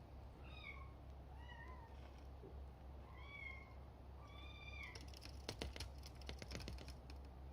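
Bengal kitten mewing four times in short, high calls, followed about five seconds in by a quick run of scratchy clicks and taps.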